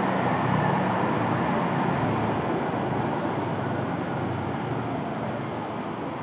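Street traffic noise: an even rumble of vehicles down the road, slowly fading.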